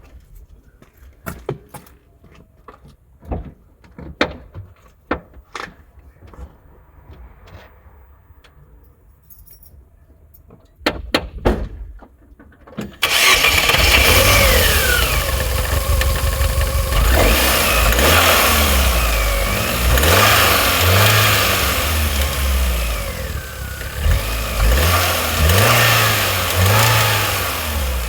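Scattered clicks and knocks, then an Astra J's engine starts about halfway through and is revved up and down several times. The revving is meant to show a rattle between 2,000 and 3,000 rpm that the owner believes comes from the back of the water pump.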